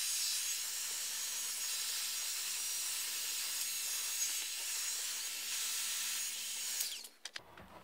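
Bosch heat gun running, a steady hiss of blowing air with a faint motor hum, aimed at a ball bearing to warm it for fitting onto a rotor shaft; it is switched off about seven seconds in.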